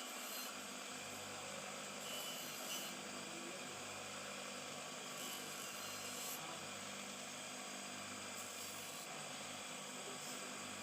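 A small electric motor running steadily with a constant hum and hiss, with short bursts of higher hiss now and then.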